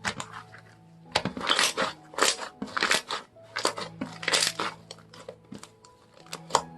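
Hands squishing and pressing slime, making a string of sharp squelching pops, about one or two a second, over soft background music.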